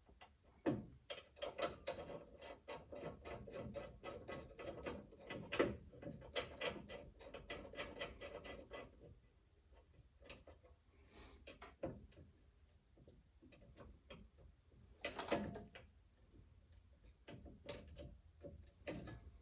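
Hand ratchet clicking in fast runs for several seconds as the hood latch bolts are run in, followed by scattered clicks and knocks of metal tools and parts, with a louder knock about three-quarters of the way through.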